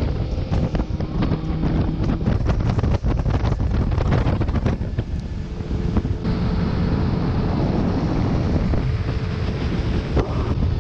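Wind buffeting the microphone of a fishing boat running at speed, over the drone of its outboard motor and the rush of water off the hull. About six seconds in, the sound turns to a more even rush with a faint steady hum.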